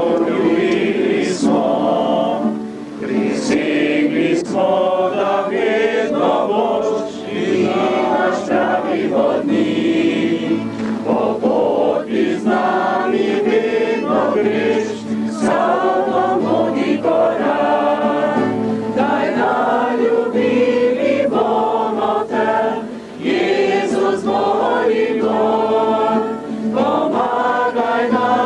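A group of men and women singing a Slovenian hymn together, its words a promise to Jesus, with short pauses between lines.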